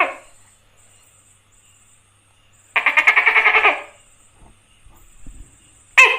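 Tokay gecko calling: a rattling train of rapid pulses about a second long near the middle, then a sharp, loud note with falling pitch right at the end, the start of its next call.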